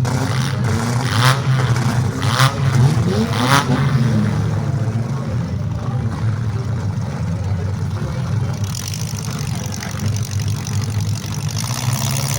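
Demolition derby car engines running and revving. Three sharp bangs come in the first four seconds.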